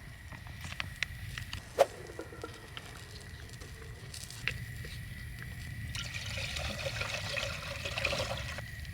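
Liquid trickling and pouring at a camp cooking pot, with a few light clicks and knocks of utensils; the liquid sound thickens about six seconds in.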